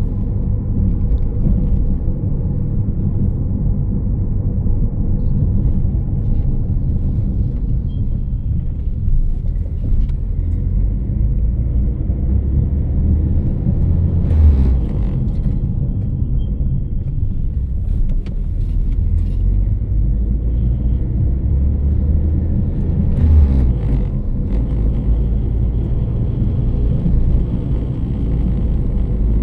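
A loud, steady low humming rumble whose deep tones shift slightly in pitch, with faint thin high chirping, likely crickets, most noticeable near the end.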